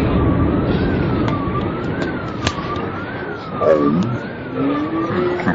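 A siren wailing, its pitch rising and falling about once a second, over the dying rumble of a building collapsing in an explosive demolition. A sharp crack comes about two and a half seconds in.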